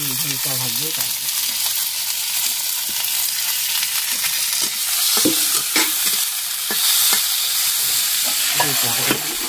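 Cut okra frying in oil in a wok with a steady sizzle, and the scrape and knock of stirring, mostly through the middle.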